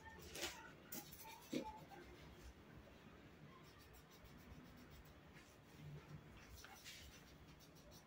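Faint scratching of pencils drawing and colouring on paper, in short irregular strokes.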